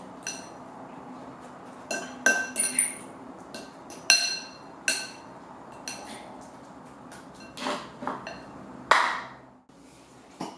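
Metal spoon clinking against a glass mixing bowl while stirring soaked bread cubes: a series of sharp, ringing clinks, with a few duller knocks near the end.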